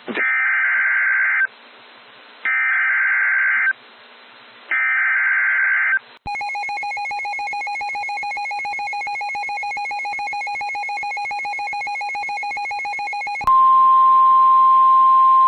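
Emergency Alert System SAME header: three short screeching digital data bursts. A separate physical alarm then sounds for about seven seconds as a steady, rapidly pulsing ring. About two-thirds of the way through it gives way to the loud, steady 1050 Hz NOAA Weather Radio warning alert tone.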